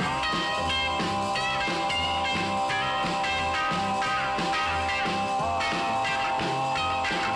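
Instrumental rock music with no singing: several notes are held under changing higher notes, over a steady pulsing bass line.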